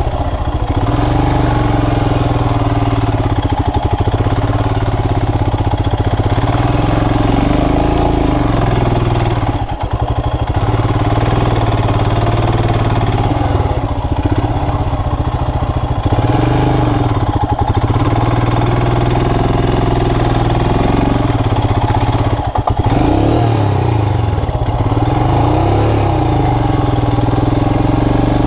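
Royal Enfield Himalayan's single-cylinder engine running under way, its note rising and falling with the throttle. The engine briefly drops off about ten seconds in and again near the three-quarter mark, as the throttle is closed or a gear is changed.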